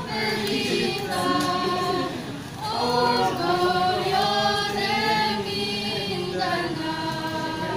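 A small group of teenage students, mostly girls' voices, singing a cappella, holding long notes in phrases, with a short break for breath about two and a half seconds in.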